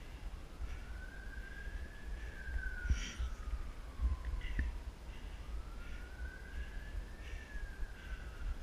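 Emergency-vehicle siren in a slow wail, faint, rising over a second or two and then falling over about three seconds, twice. Underneath are footsteps on stone steps, a few knocks, and a low rumble on the microphone.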